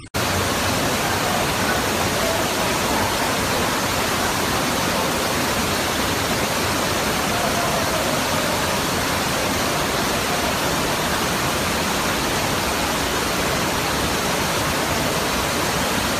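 Loud, steady rush of floodwater: an even roar with no breaks that cuts in suddenly at the start.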